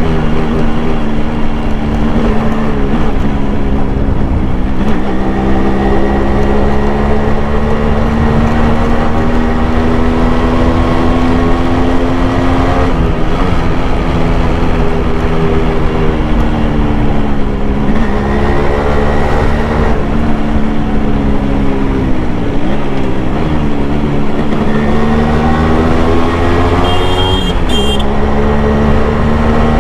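1991 Yamaha RX100's two-stroke single-cylinder engine heard onboard while riding: its pitch climbs through each gear and drops at the gear changes, several times over. A short high beep sounds near the end.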